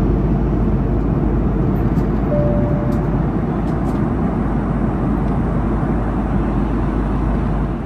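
Steady low rumble of engine and airflow noise inside an Airbus A330 passenger cabin, with a short single steady tone about two and a half seconds in.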